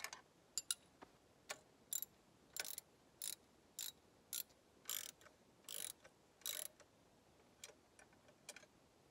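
Hand socket ratchet clicking in short back-and-forth strokes, about one and a half to two clicks a second, tightening the outside bolts of a bracket; the clicks grow fainter and sparser near the end.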